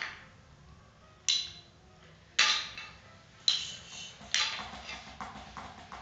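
A pair of small hand cymbals clashed together by a toddler: several bright metallic clashes about a second apart, each ringing briefly, then a few lighter taps near the end.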